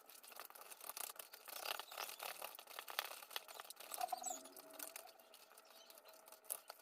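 Faint, irregular clicking and scraping of a utensil against a bowl as butter, vanilla sugar and eggs are mixed by hand.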